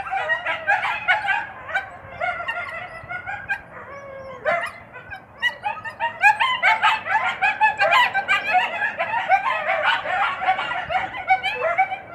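Coyotes giving a rapid run of short, high, overlapping yips and whines, courtship calling in the mating season. The calling thins out about two seconds in and builds again from about six seconds.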